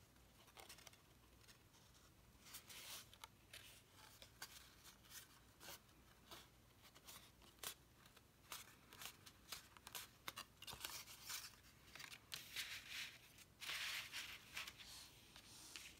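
Faint rustling and crinkling of stiff card stock being folded and handled, with light ticks and short scraping rushes; the longest rush comes near the end as the paper is pressed flat against the table.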